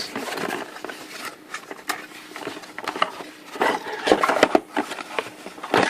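A small cardboard box being opened and its contents handled by hand: scattered clicks, taps and rubbing of cardboard and packaging, busiest after the middle and with a sharp knock near the end.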